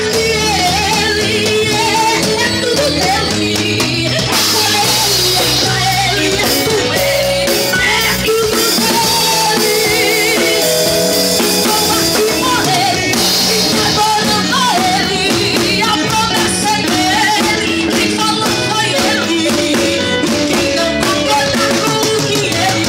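Live gospel band playing, with keyboard, drum kit and electric guitar and a voice singing over them. The cymbals ring brightly from about four seconds in until about halfway through.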